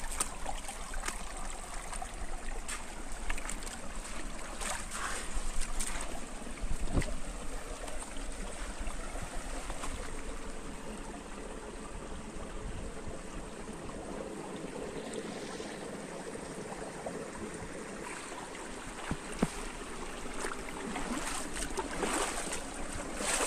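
Shallow rocky mountain stream babbling over and between boulders, a steady rushing water sound, with occasional short clicks and knocks scattered through.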